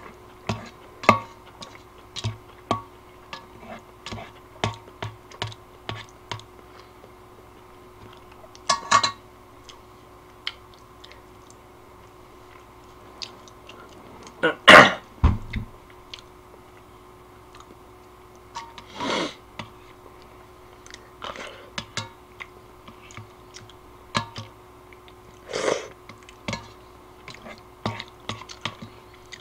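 Eating noises: ramen being scooped from a stainless steel pot with a spoon, with irregular light clicks and clinks and chewing. A few louder, longer noises break in, the loudest about halfway through.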